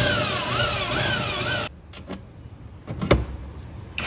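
Skil drill with a countersink bit cutting into an aluminum rail to enlarge a countersink, its whine wavering up and down as the bit cuts, stopping after about a second and a half. A single sharp click follows about three seconds in.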